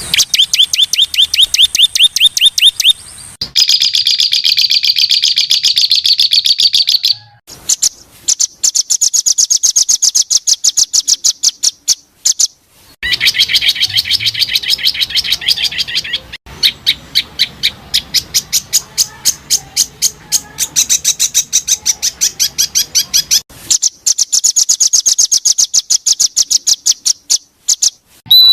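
Songbird song for bird training: fast, even volleys of sharp, high repeated chirps, many notes a second. The passages switch abruptly every few seconds to a different note pattern.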